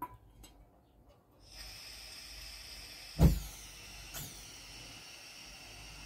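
Gas hissing from a burner mounted on a portable gas cylinder once the valve is opened. About three seconds in, the gas catches with a loud low pop, a smaller pop follows a second later, and the burner keeps hissing.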